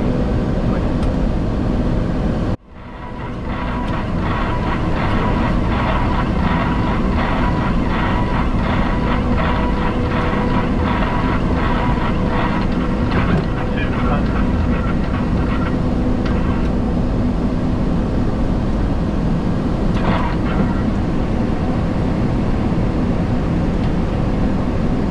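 Steady flight-deck noise of an Embraer E-190 on approach: airflow and engine hum, with a fast, irregular patter of rain on the windscreen through the middle. The sound cuts out abruptly about two and a half seconds in and fades back up over a second.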